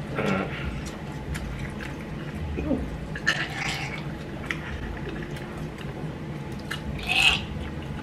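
Mouth sounds of someone chewing and swallowing a mouthful of chicken wing: scattered small wet clicks and smacks, with two short hissing breaths about three seconds in and near the end.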